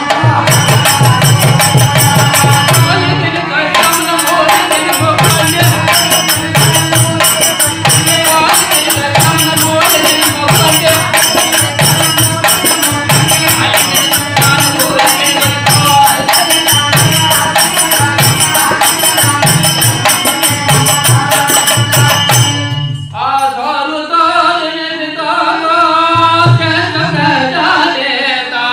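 Live Harikatha devotional music: small brass hand cymbals clashing steadily over a regular drum beat. About 23 seconds in the cymbals stop and a man's singing voice carries on over the drum.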